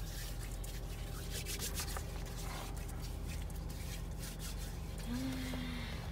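Steady low hum of a car's interior, with faint rubbing and rustling of a cardboard food box being handled. A short low tone sounds about five seconds in.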